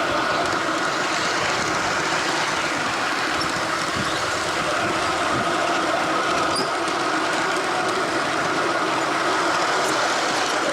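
G-scale model train running steadily along garden railway track, a continuous even rolling sound of wheels on rail.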